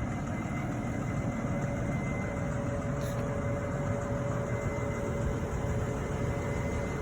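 An engine idling steadily, a low even rumble with a faint steady whine over it.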